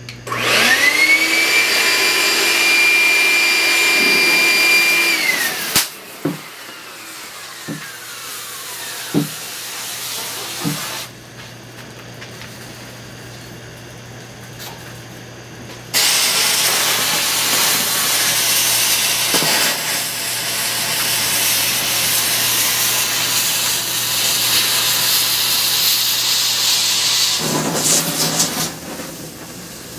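A vacuum cleaner motor spins up with a rising whine and runs steadily for about five seconds, then winds down after a sharp crack. A few sharp cracks follow. About halfway through, a loud hissing rush of burning gunpowder and rockets starts and runs for about twelve seconds.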